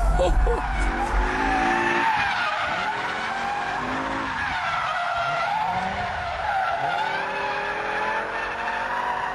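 BMW E60 M5's V10 engine revving up and down under power while the rear tyres squeal in a long, smoking slide. The squeal wavers in pitch, and the engine note rises and falls several times.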